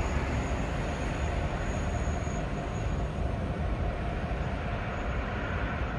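Victorian T class diesel-electric locomotives running, a steady low diesel rumble with a faint high whine over it.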